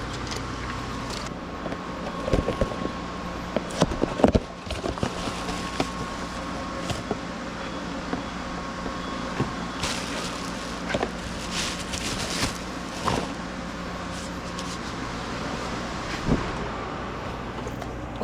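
A steady low mechanical hum with scattered sharp clicks and knocks, as of tools or parts being handled, bunched about two to five seconds in, again around ten to thirteen seconds, and once more near the end.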